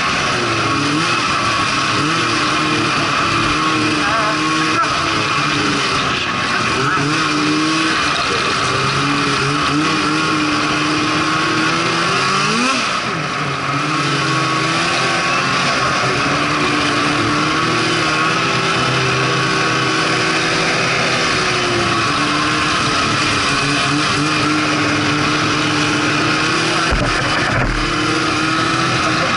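Snowmobile engine running under way, its pitch rising and falling with the throttle, most sharply in a quick dip and climb about twelve seconds in.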